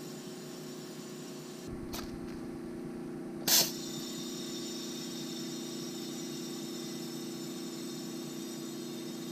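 Steady background hum, with a short click about two seconds in and a louder sharp knock about three and a half seconds in.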